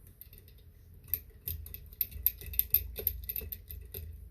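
Small screwdriver backing out a tiny screw that holds a laptop battery, with a quick run of light metallic clicks and ticks starting about a second in, over faint handling rumble.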